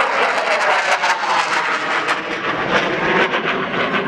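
Eurofighter Typhoon's twin EJ200 jet engines heard from the ground as the jet turns overhead: a loud, steady jet rush broken by a rapid, ragged crackle.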